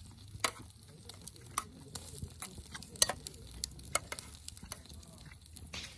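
Campfire cooking: irregular crackles and light clicks of food sizzling and utensils stirring over a wood fire, with a few sharper snaps about half a second, one and a half, three and four seconds in.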